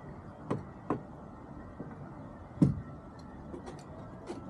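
A few sharp knocks and clicks over a steady low background: two about half a second and a second in, the loudest about two and a half seconds in, then a run of small ticks near the end.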